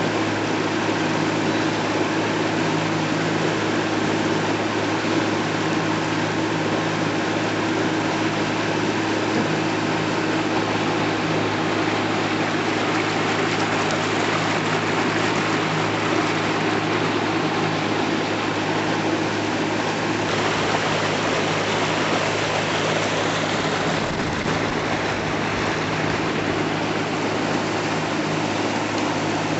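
Outboard motor of a small fishing boat running steadily under way, with a constant low hum over a rush of wind and water; the hum shifts slightly about two-thirds of the way through.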